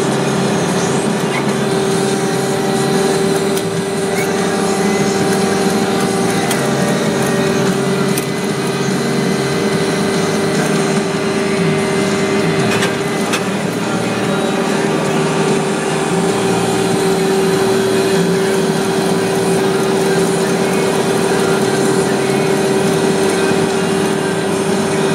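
Paver-laying machine with a vacuum lifting head running steadily: a constant droning tone, with a few faint clicks.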